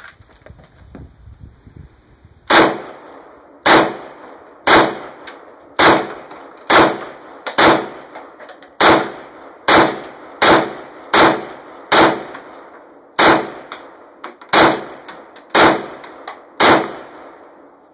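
CETME roller-delayed battle rifle in 7.62×51 firing about sixteen shots in steady succession, roughly one a second, starting a couple of seconds in, each a sharp crack with a brief ringing tail; quieter handling noise comes before the first shot.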